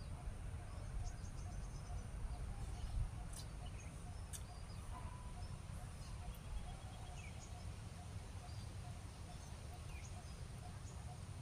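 Quiet outdoor nature ambience: scattered faint bird chirps and a steady high insect drone over a low rumble, with a soft note repeating about twice a second.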